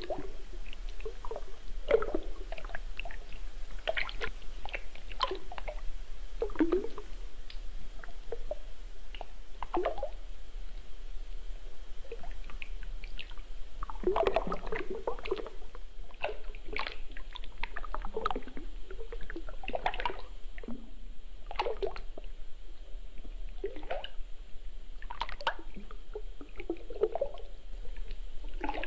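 Wet liquid sounds: irregular plops, drips and gurgles, as objects drop into and move through a bowl of milky liquid, some single and some in short clusters.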